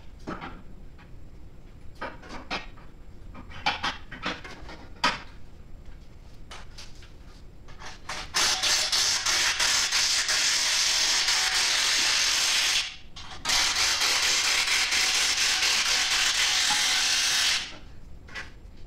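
A power tool runs in two long bursts of about four seconds each, a steady high whirring hiss that starts and stops abruptly with a short break between. Before it come a few light clanks of metal parts being handled.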